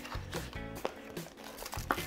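Quiet background music under the crinkling of plastic bags and rustling of a cardboard box as packed cables and parts are lifted out, with a sharp click near the end.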